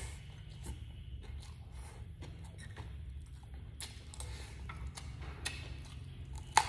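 A person chewing food close to the microphone: a run of small, irregular wet clicks and smacks, with one sharp, louder click near the end.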